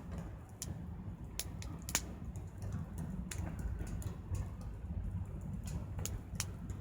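Wood fire crackling in a small campfire pit, with irregular sharp pops over a low steady rumble; the loudest pop comes about two seconds in.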